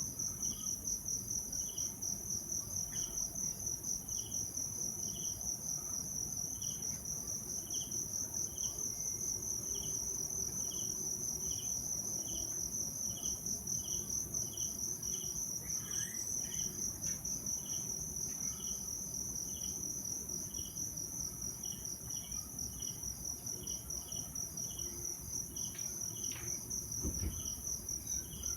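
Insects calling: a continuous high, fast-pulsing trill, with a second short chirp lower in pitch repeating about once a second.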